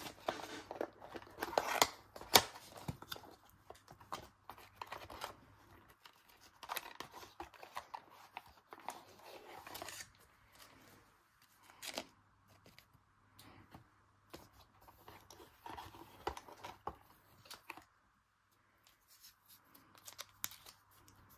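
Hands opening a small cardboard box and handling foil Pokémon booster packs: rustling of packaging with many small clicks and taps, busiest in the first half and sparser later.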